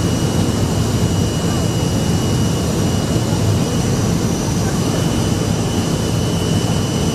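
Jet airliner cabin noise from a window seat over the wing on approach with flaps down: a steady rumble and rush of air with a thin, high, steady whine on top.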